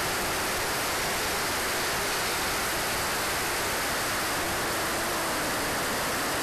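Steady rushing noise of air streaming past an RC jet in flight, mixed with its Swiwin SW60 turbine running, picked up by a camera mounted on the airframe. The noise stays even throughout, with no distinct whine standing out.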